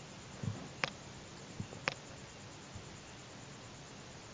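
Two small sharp clicks about a second apart, with a soft low knock just before the first: plastic beads and thread being handled on the work surface. A faint steady hiss lies underneath.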